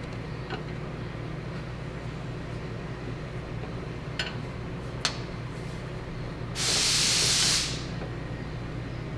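A burst of hiss, like escaping compressed air, lasting about a second and starting about two-thirds of the way in. It sits over a steady low shop hum, with a few light metallic clicks earlier.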